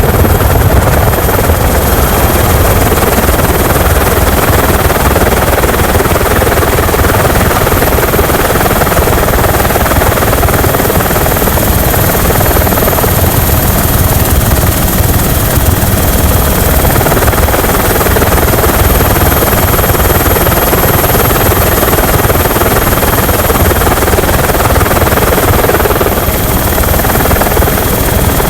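Helicopter rotor and engine noise heard from on board, loud and steady, with a thin high whine over it.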